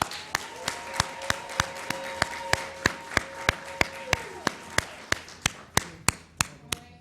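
Nasdaq closing bell: a steady electronic tone held for about four seconds, then dropping away. Applause runs through it, with loud rhythmic clapping at about three claps a second.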